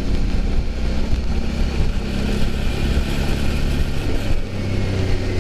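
Motorcycle engine running steadily while riding along a dirt road, with wind rushing over the microphone.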